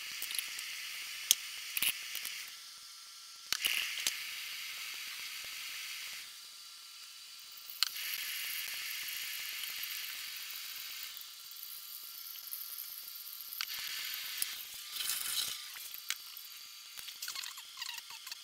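Hot water poured from a stovetop kettle into a pour-over coffee dripper: a hiss that starts and stops about four times, mixed with sharp clicks and knocks as the kettle is handled. Rattly handling clicks come near the end.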